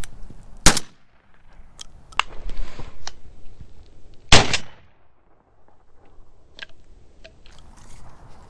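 Two shotgun shots about three and a half seconds apart, the second louder and ringing out briefly, with light crunching steps through dry brush between them.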